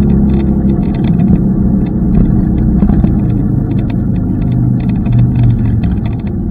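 Wind and road noise rumbling on the microphone of a riding electric scooter, loud and steady, with short irregular crackles and a few low held tones as from nearby traffic.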